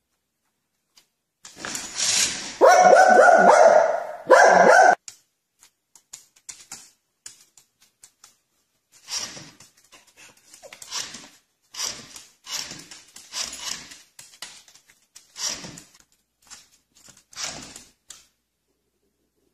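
A dog barking, a quick string of loud pitched barks for a few seconds. A run of shorter, softer noises follows at about one a second.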